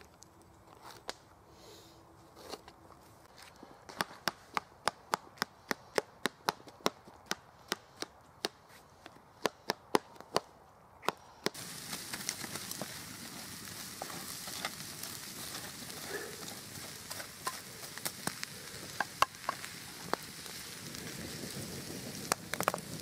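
A knife chopping green pepper on a camp pan, with sharp, even strikes about two a second. About halfway through this gives way to a campfire crackling over glowing coals: a steady hiss broken by scattered sharp pops.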